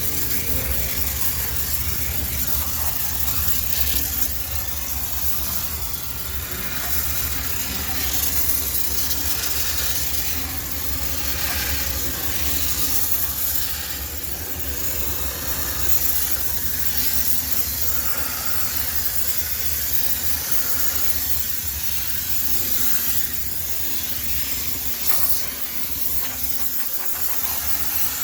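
High-pressure steam cleaner jetting steam in a continuous hiss, sterilising a laundromat washing machine. A steady low hum runs beneath it and drops away near the end.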